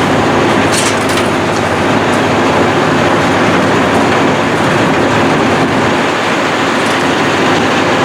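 Heavy demolition machinery running steadily and loudly, with a low engine drone. A few short cracks of breaking debris come about a second in.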